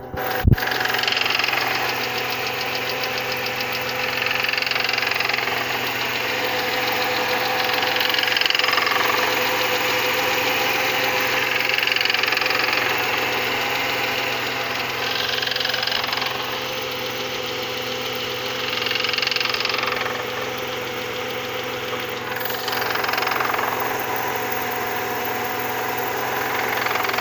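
Mercedes-Benz M112 V6 engine running steadily with a knock. The owner puts the knock down to the belt-driven accessories (pulleys, tensioner and the like). A single sharp click comes about half a second in.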